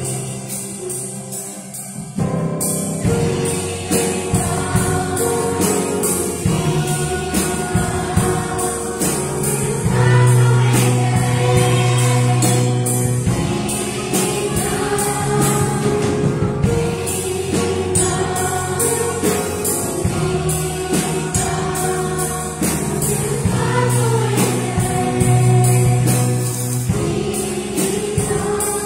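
Children's choir singing a Christmas song in Portuguese, backed by a band with bass and drums keeping a steady beat.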